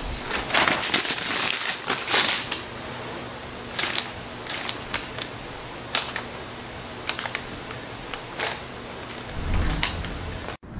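Sheet of paper crinkling and rustling, with irregular sharp crackles over a steady hiss. A low rumble rises near the end.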